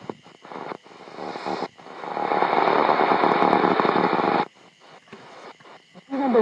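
Shortwave receiver hiss and static while tuning across the 31-metre band on a SIHUADON R-108 DSP receiver. The sound cuts out briefly several times as the set steps between frequencies, with a louder stretch of static in the middle, and a station's broadcast voice comes in at the very end.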